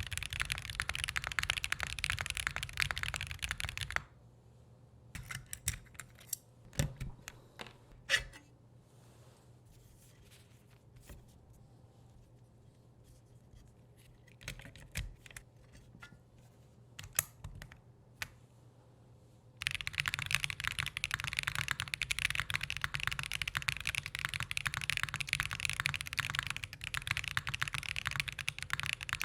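Fast continuous typing on an XOX70 mechanical keyboard with White Jade tactile switches and an aluminium plate. About four seconds in the typing stops, leaving a long stretch with only a few scattered clicks. Steady typing resumes near two-thirds of the way through, now with plate and EST foam fitted in the keyboard.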